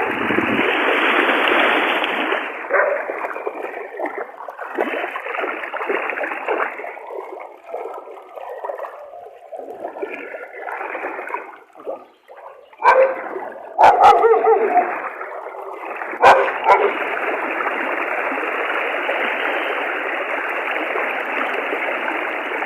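Fast floodwater rushing, a steady noisy wash that thins out for a while and comes back full in the second half. A few loud, sharp sounds cut through it around the middle.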